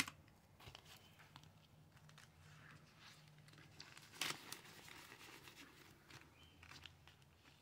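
Faint rustling and crinkling of paper bills and cash envelopes being handled, with one sharper crackle a little past four seconds.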